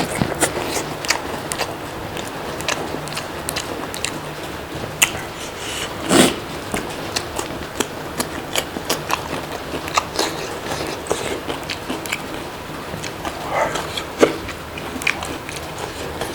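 Close-miked eating: a person biting and chewing food with many small, quick wet mouth clicks and smacks, and one louder short sound about six seconds in.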